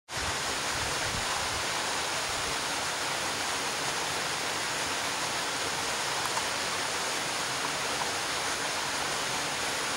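Steady rush of flowing water, an even hiss with no breaks or changes in level.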